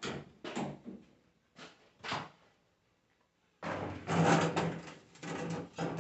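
Handling sounds at a sandblasting cabinet as alternator parts are put inside: a few short knocks and scrapes, then from about three and a half seconds in a longer stretch of clattering rustle with a low hum under it.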